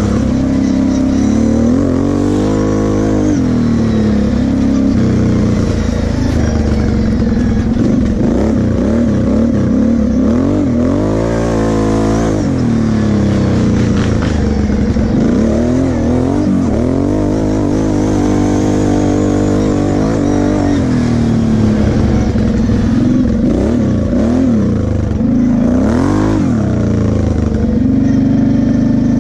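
Kawasaki KFX 700 V-Force quad's V-twin engine revving up and down again and again as the throttle is worked, settling to a steadier note near the end as it slows.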